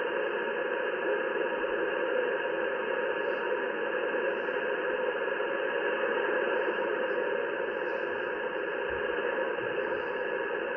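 Yaesu FT-710 HF transceiver receiving in upper sideband on the 15-metre band, giving out steady band static as it is tuned up the band between stations. The hiss is even and narrow, with no treble.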